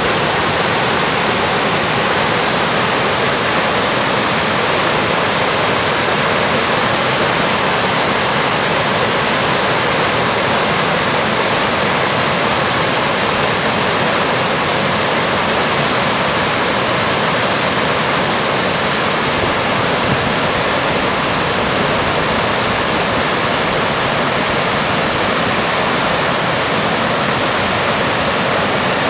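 Creek water cascading over a series of low rock ledges, a steady rush of white water.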